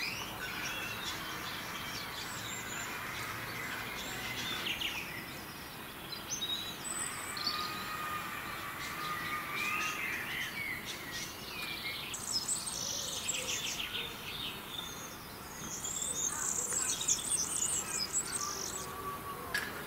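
Small songbirds singing and chirping, with several overlapping phrases and a busier burst of song about twelve seconds in and again near the end.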